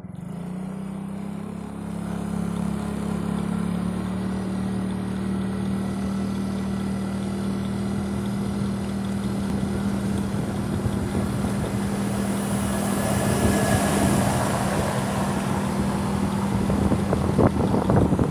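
Vehicle engine running at a steady cruising speed, a constant hum throughout. Wind noise grows about two-thirds of the way in and gusts across the microphone near the end.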